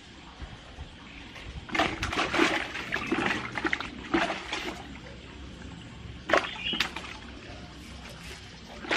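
Water splashing and sloshing in irregular bursts for a few seconds from about two seconds in, then two sharp splashes later on.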